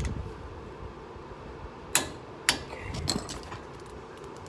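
The front brake rotor and hub of a 2006 Ford F-150 are turned by hand, with a few sharp clicks about two to three seconds in. The rubbing noise is the new brake pads dragging lightly on the rotor.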